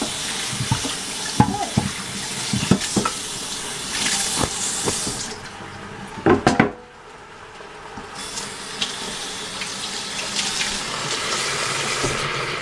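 Beef searing in a hot pan: a steady sizzling hiss that dips for a couple of seconds just past halfway, with a few light knocks early on.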